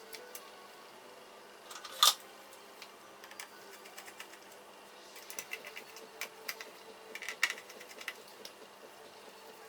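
Irregular light clicks and taps from hands working on a laptop, over a faint steady hum. One sharp click about two seconds in is the loudest, and a quick cluster of clicks comes near the end.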